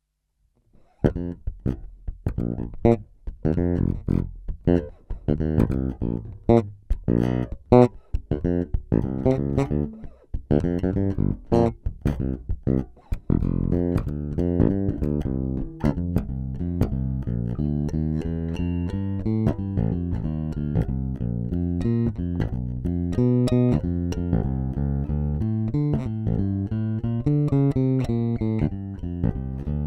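Solo electric bass playing on a Cort Space 5 headless five-string bass, starting about a second in. The first half has sharp, percussive, separated attacks; the second half is a denser run of sustained notes.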